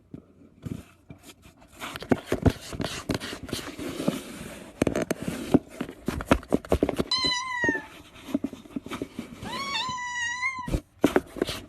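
Cat meowing twice, first a short falling meow and then a longer one that rises and holds, over a run of irregular clicks and knocks.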